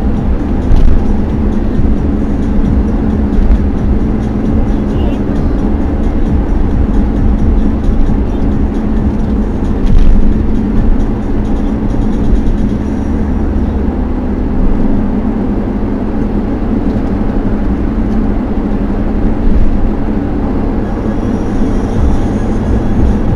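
Steady road and engine rumble of a vehicle cruising at highway speed, heard from inside the cabin.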